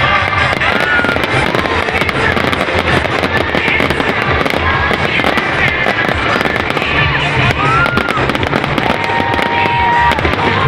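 Fireworks going off in a dense, continuous run of crackling pops and bangs.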